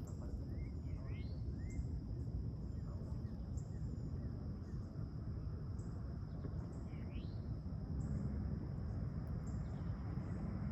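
Outdoor ambience: a steady low rumble under a continuous high insect drone with evenly spaced chirps about once a second, and a few short bird chirps near the start and again about seven seconds in.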